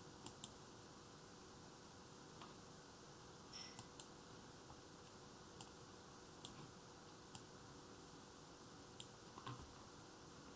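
Faint computer mouse clicks, about ten, scattered irregularly over a steady low hum; otherwise near silence.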